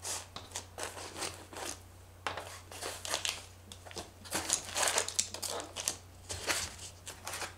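Clear plastic parts bags crinkling and small parts being set down on a plastic table: irregular rustles and light taps throughout, over a faint steady low hum.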